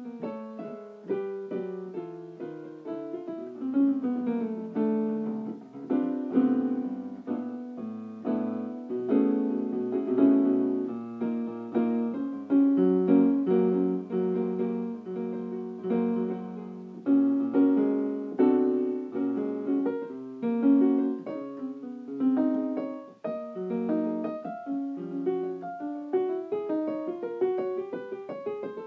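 Solo piano improvisation on a keyboard instrument: notes and chords struck in quick succession, each note starting sharply and dying away.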